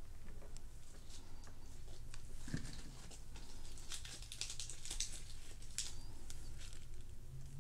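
Light crackling and rustling of a crispy rice pancake (bánh xèo) being handled and broken up by hand: a string of small crisp ticks, busiest around the middle.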